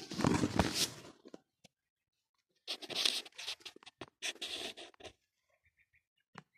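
Scratchy rustling and scraping in two bursts: a loud one at the start lasting about a second, and a longer one about three seconds in, with a single click near the end.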